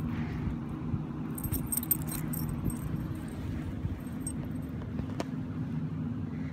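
Metal tags on a puggle puppy's collar jingling on and off as she moves, over a steady low hum.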